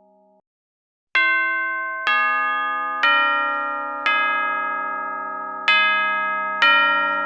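The tail of a soft ringing tone dies away, then after a short silence a bell-like chime is struck six times, about once a second with a longer pause before the fifth. Each strike rings on with a bright metallic tone, the pitch shifting a little from strike to strike.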